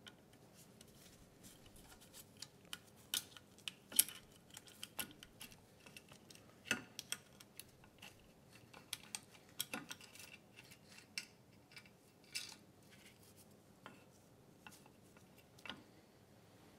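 Scattered light metallic clicks and rattles of a Subaru EX30 engine's timing chain and camshaft being worked loose by hand from its overhead-cam cylinder head. The sharpest click comes about four seconds in.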